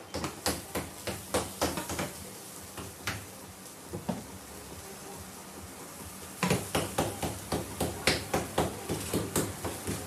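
Rapid, rhythmic knocking, about three to four sharp strikes a second, easing off for a few seconds in the middle and starting up again about six seconds in.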